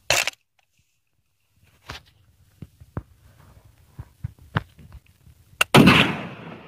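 A single rifle shot from a Turkish 'Enfauser' hybrid of a Mauser and a Lee-Enfield, firing a .303 British cartridge, about 5.7 seconds in, its report fading away over about a second. A few light clicks come before it.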